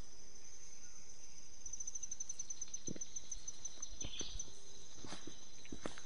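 Subtropical forest ambience: insects holding a steady high-pitched drone, with a fast pulsing trill on the same pitch from about two seconds in until past the middle. A few footsteps on the trail land over it.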